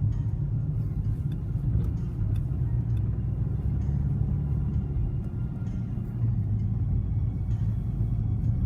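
A motor vehicle running with a steady low rumble, with faint scattered clicks on top.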